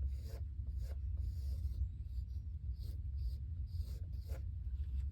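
Pencil scratching on sketchbook paper in a series of short, irregular strokes while a character's hair and headband are drawn, over a steady low hum.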